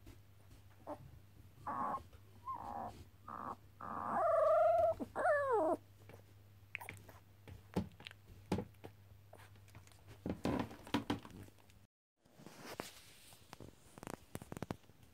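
Cocker spaniel puppies play-biting, one giving short squeaky yips and whines that waver in pitch. The loudest is a drawn-out whine about four seconds in. Scattered rustles and soft clicks follow.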